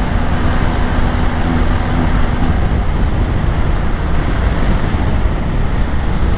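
BMW R 1250 GS Adventure's boxer-twin engine running steadily as the bike rides along, under a loud, even rush of wind and road noise.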